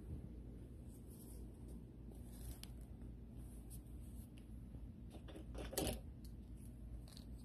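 Faint handling noise: a hand rustling and brushing against a cloth-bodied doll and faux fur, over a low steady hum, with one louder rustle about six seconds in.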